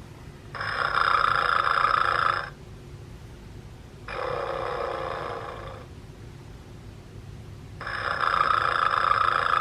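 Vintage snoring teddy bear giving three snores of about two seconds each, with pauses of nearly two seconds between them. The middle snore is softer and lower.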